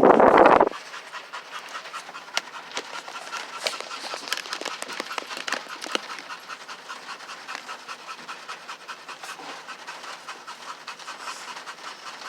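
Dog panting rapidly and steadily, with a short loud sound right at the start.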